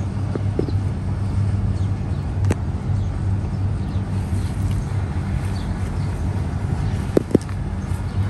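Steady low hum of road traffic, with a few short sharp clicks: one about two and a half seconds in and two close together about seven seconds in.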